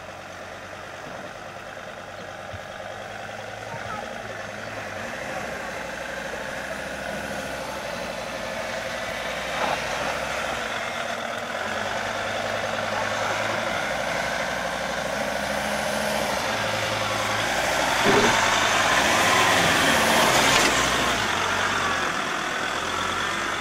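Mercedes-Benz ML (W163) engine running as the SUV crawls over an off-road axle twister, growing louder through the stretch and loudest for a few seconds about three-quarters of the way in.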